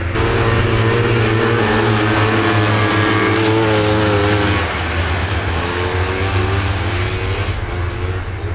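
Vintage racing snowmobiles' two-stroke engines running hard as sleds pass. The pitch wavers, then climbs over a couple of seconds in the second half, and the sound shifts abruptly twice.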